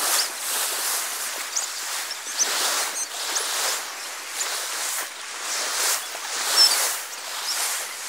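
Choppy sea water sloshing and lapping close to the microphone in uneven surges, with small splashes.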